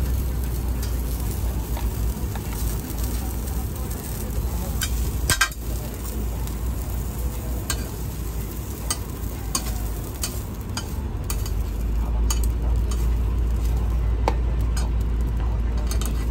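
Pork belly sizzling steadily as it fries on a hot metal cooking surface. Metal utensils stirring and turning the meat make frequent short clicks and scrapes, with a louder clack about five seconds in.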